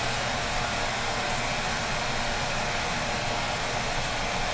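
Electric hand dryer running steadily, an even blowing rush with a low hum underneath.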